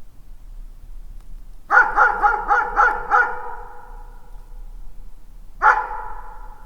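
A dog barking in the distance, echoing: a quick run of about six barks about two seconds in, then a single bark near the end.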